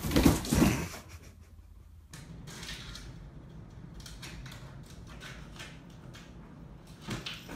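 A tall cardboard box tipping over and hitting the floor, two thumps close together in the first second. After that, a faint steady room hiss with a few light ticks.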